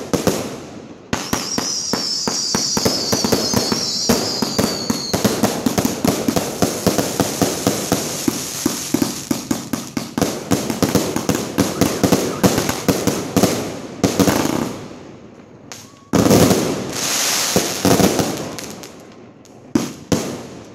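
250-shot fireworks cake firing: a dense run of rapid shots and bangs with crackling, with a high wavering whistle over the shots in the first few seconds. The firing eases off briefly and then resumes with a loud volley about 16 seconds in.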